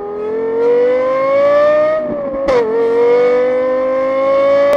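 Car engine accelerating hard, its pitch climbing steadily, dropping sharply about halfway through, then climbing again.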